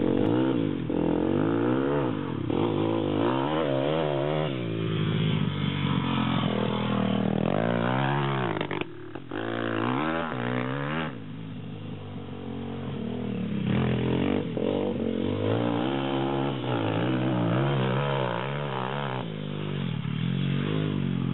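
Pit bike engine revving hard and easing off again and again through throttle and gear changes, its pitch rising and falling in repeated sweeps. It drops back for a few seconds about eleven seconds in, then grows louder again.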